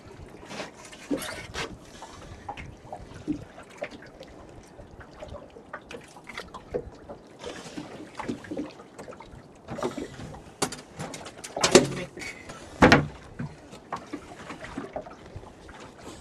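Water splashing and trickling, with irregular knocks and taps scattered through; two louder splashes or knocks come close together about twelve and thirteen seconds in.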